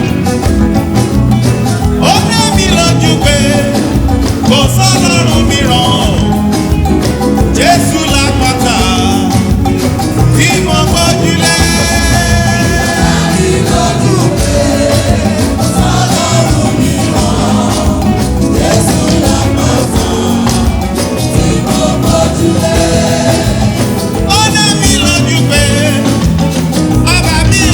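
A church anthem performed by singers over band accompaniment with a steady beat.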